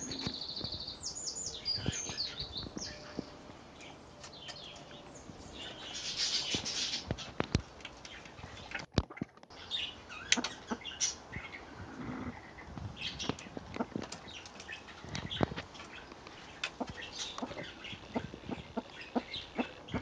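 Satyr tragopans pecking grain off a concrete floor: irregular sharp taps of their beaks, with a few high chirps near the start.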